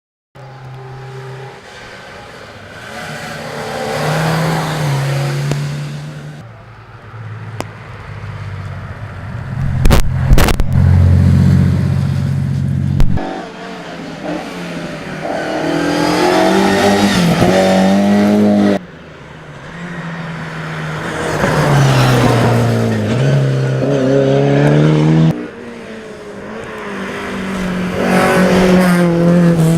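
Classic rally car engines revving hard and accelerating past, climbing in pitch and dropping back at each gear change, in several short passes separated by sudden cuts. A couple of sharp cracks come about ten seconds in.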